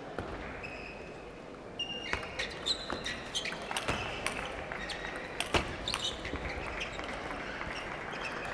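Table tennis rally: the ball clicks sharply off the bats and the table in a quick, irregular series, starting about two seconds in.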